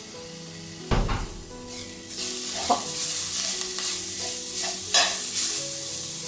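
Metal spoon stirring grated garlic and onion with ground spices in hot oil in a stainless steel pan. There is a knock against the pan about a second in, then sizzling that grows louder, with scrapes of the spoon on the pan bottom.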